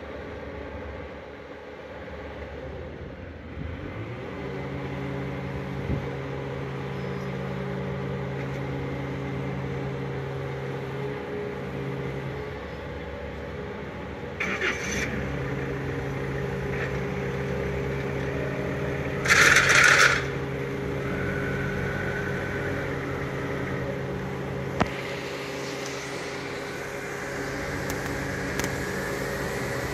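Engine and hydraulics of a big travel-hoist boat lift running steadily with an even hum while lowering a boat in its slings, pausing briefly about a dozen seconds in. About two-thirds of the way through comes a loud hiss lasting about a second.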